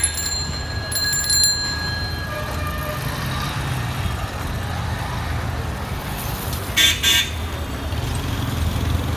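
Street traffic noise with a steady low rumble of vehicles. About seven seconds in, a vehicle horn gives two short toots close together.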